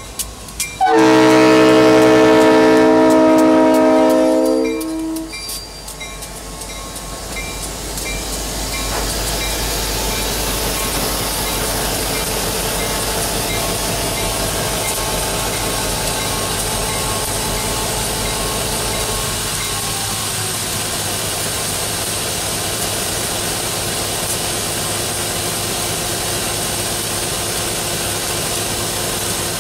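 Diesel freight locomotive's air horn sounding one long multi-tone blast about a second in, lasting some three and a half seconds. After it, the steady rumble of the passing locomotives' diesel engines and rolling freight cars.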